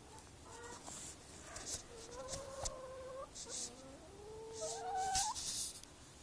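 Domestic hens giving drawn-out, wavering calls, several overlapping, with short scratchy rustles in between.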